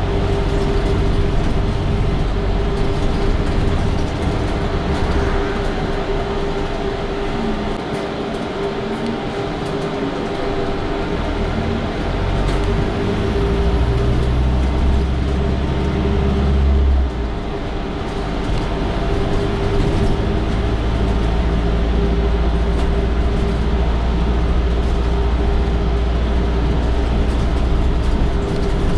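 London bus heard from on board while driving: a low engine drone over a steady hum, swelling and easing with the bus's speed. The drone drops sharply about seventeen seconds in, then picks up again as the bus pulls away.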